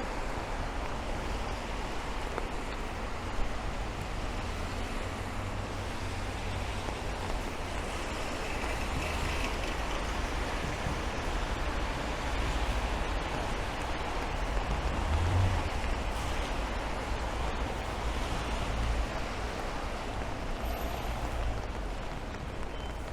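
Steady rain falling on a city street, with car traffic hissing past on the wet road. The low engine and tyre rumble swells and fades several times as vehicles go by.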